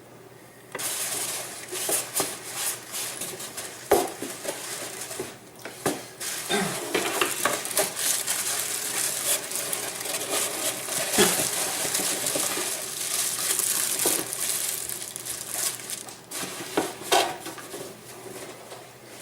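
Meat grinder parts being handled and unpacked: a long stretch of rustling packaging with scattered clicks and knocks of metal and plastic parts.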